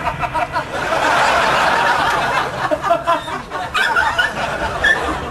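A group of people laughing: it swells to its loudest about a second in, then breaks up into scattered chuckles.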